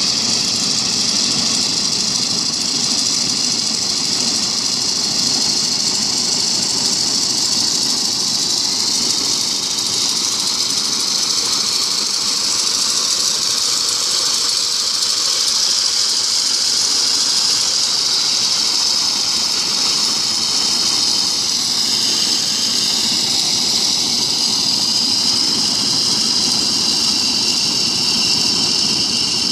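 Power tiller engine running steadily under load while its front-mounted reaper cuts standing paddy, a continuous mechanical drone with a steady high hiss over it.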